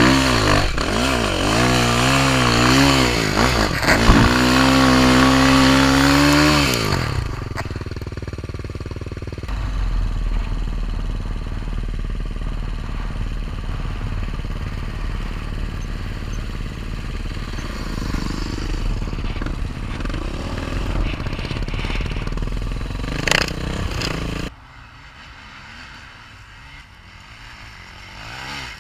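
Enduro motorcycle engine revving hard, its pitch rising and falling again and again for about seven seconds, then running more quietly and steadily. The sound drops off abruptly a few seconds before the end.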